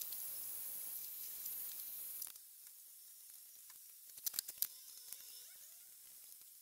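Heat gun blowing hot air onto a PVC foam strip to soften it for bending, switched off about two seconds in. A few sharp clicks and taps of handling follow about four seconds in.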